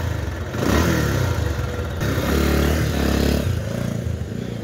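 Bajaj Pulsar 150's single-cylinder engine being revved in a few blips, the pitch climbing and falling, held highest for about a second midway. The engine is noisy and burning oil, blowing smoke out of the exhaust.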